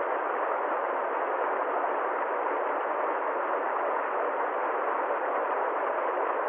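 Steady rush of flowing river water: an even noise that holds the same level throughout, with no separate splashes or breaks.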